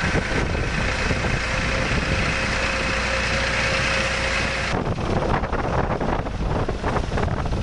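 Engine running steadily with a faint steady whine, heard from a vehicle moving through floodwater. About five seconds in, the whine stops and a rougher, choppier noise takes over.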